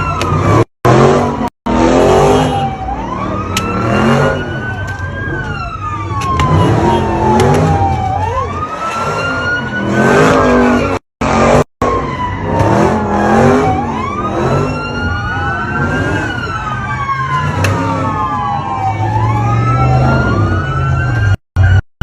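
Police car sirens wailing, slowly rising and falling, with several sirens overlapping in the second half, over car engines revving. The sound cuts out briefly a few times.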